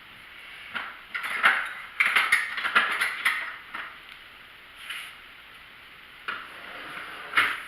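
A serving spoon scraping and clinking against a pan and plate as stir-fried pork and vegetables are dished up. A busy run of scrapes and clatters in the first half is followed by a few single knocks.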